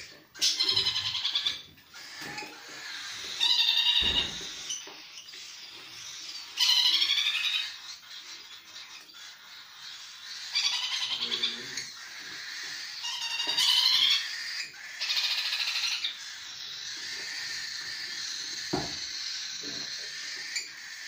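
Several young parrots giving harsh, rapidly pulsing begging calls while being hand-fed. The calls come in bursts of about a second, several times, then run almost without a break over the last few seconds.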